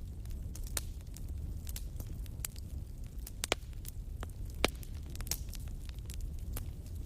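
Wood fire burning with a steady low rumble of flames and frequent sharp crackles and pops from the burning logs, two of them louder, in the middle.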